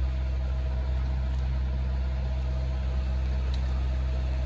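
Sailboat's inboard engine running steadily under way while motoring in calm conditions, a constant low drone with a faint steady whine above it.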